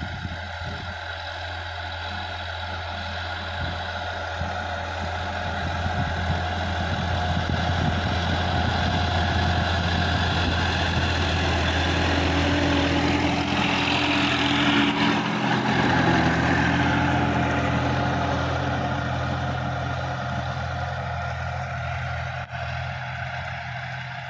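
Sonalika DI-50 RX tractor's diesel engine running steadily while pulling a rotary tiller through the soil. It grows louder as the tractor approaches, is loudest as it passes close by around the middle, then fades as it moves away.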